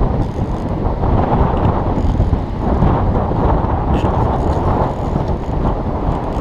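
Strong wind buffeting a GoPro's microphone: a loud, continuous low rumble.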